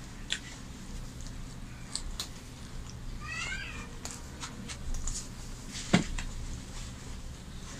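Eating by hand: paratha torn and picked from a glass plate, with scattered soft clicks and one sharper knock about six seconds in. About three seconds in, a brief high animal call of a few quick rising notes.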